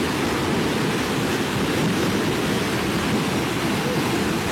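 Rushing floodwater from a stream overflowing its bed after heavy rain: a steady, loud, unbroken rush.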